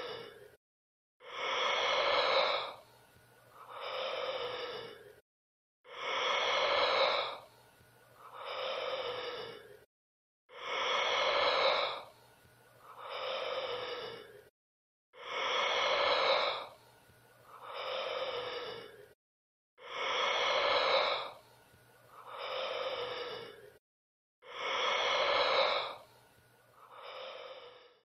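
Hiccup sound effect: a pitched, throaty vocal hiccup followed by a softer second one. The same pair repeats six times at an even pace, about every four and a half seconds, with dead silence between.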